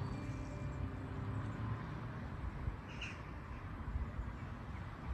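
Outdoor ambience: an uneven low rumble, with the last notes of the music fading out in the first second and a single short bird chirp about three seconds in.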